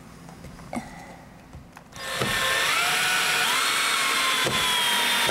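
Cordless drill driving a 2-inch screw through a hinge plate into wood. After about two seconds of small handling clicks the drill motor starts and whines steadily for over three seconds, its pitch stepping up twice and then sagging slightly as the screw is driven home.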